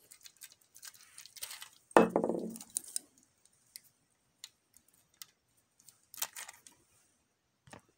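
Small clicks and light clatter of a 1:50 scale diecast excavator model and its clamshell attachment being handled and clipped onto the model's quick coupler. There is a louder thump about two seconds in, and a quick run of clicks around six seconds.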